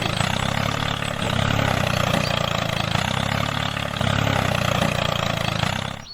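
Mini tractor's engine running steadily, growing louder for a second or so twice and easing back between.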